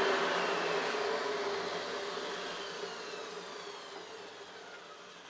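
Motor of a 1971 Hoover Senior 6525C upright vacuum cleaner winding down after switch-off, its whine falling in pitch and fading steadily over several seconds. The long run-down is what the owner expects from a healthy motor after its service.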